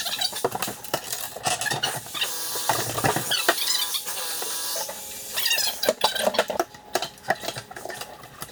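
Demolition clatter: rapid knocks, scraping and clattering of debris being pried and broken, with squeaks in the middle.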